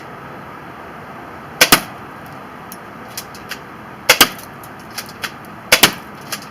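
JT Splatmaster z200 toy paintball shotgun firing three shots, each a sharp double snap, about 1.7, 4.2 and 5.8 seconds in. Fainter clicks come between the shots.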